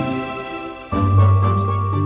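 Soft background music of sustained tones; a new chord with a deep bass note comes in about a second in.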